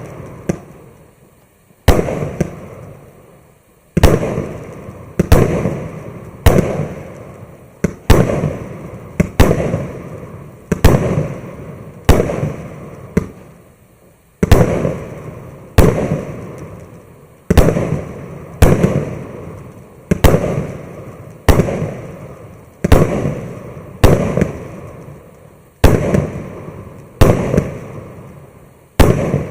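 MAXSEM Scintillant MC116 fireworks battery firing shot after shot. Sharp loud bangs come about once a second, each trailing off over about a second.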